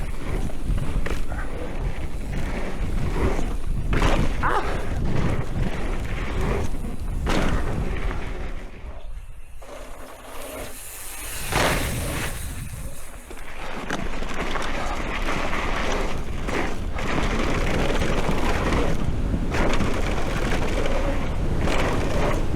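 Mountain bike being ridden over dirt, heard from a camera on the bike or rider: steady wind rumble and tyre noise with knocks from the bike. The noise drops away for a few seconds about nine seconds in, with a sharp hiss near twelve seconds, then the rolling noise returns.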